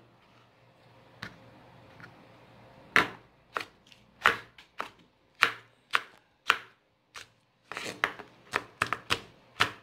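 Chef's knife slicing a red bell pepper on a cutting board: after a quiet first few seconds, sharp knocks of the blade striking the board come about one or two a second, then faster near the end.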